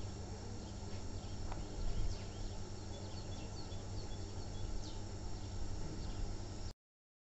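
Outdoor ambience: a steady low rumble and hiss under a steady high drone, with a scattering of brief high chirps between about two and five seconds in.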